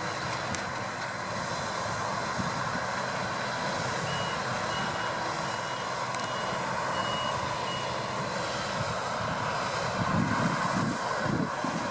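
Deutz-Fahr 6060 combine harvester running steadily while harvesting wheat. About four seconds in, a run of high electronic beeps sounds for around four seconds, and near the end there is louder low rumbling.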